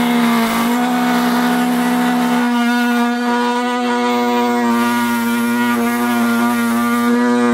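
Oscillating multi-tool running at speed, its blade cutting through the car boot's carpet lining, a loud steady buzz. The pitch holds even, with a slight change in its tone a couple of seconds in as the blade loads.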